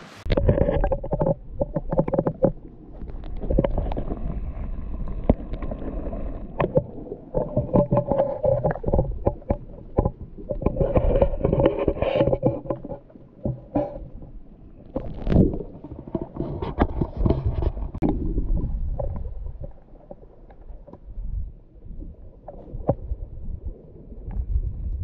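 Muffled sloshing and gurgling of sea water with knocks and bumps, heard through a camera dipped in the surf. It comes in surges every few seconds and eases off near the end.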